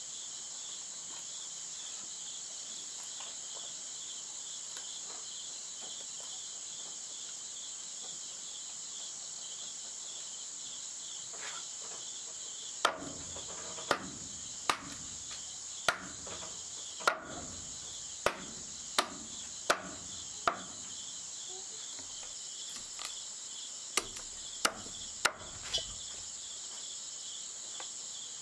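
Insects chirring steadily, with a series of sharp knocks starting about halfway: about nine roughly a second apart, a short pause, then four more in quicker succession.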